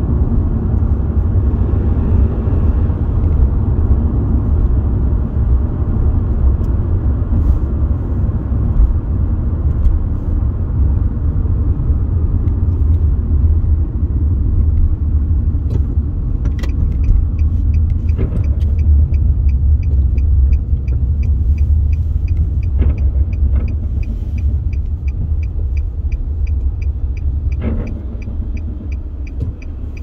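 Steady low rumble of a car driving, heard from inside the cabin. From a little past halfway, a quick, even ticking of about two a second joins in, with a few soft knocks.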